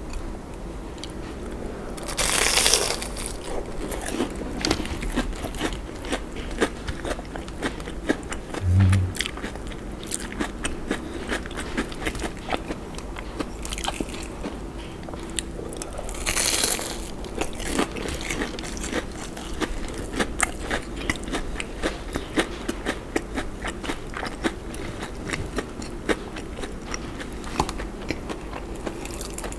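Close-miked biting and chewing of crispy deep-fried breaded shrimp donuts: two loud crunching bites, about two seconds in and again about sixteen seconds in, with steady crackly chewing between and after. A short low thump near nine seconds.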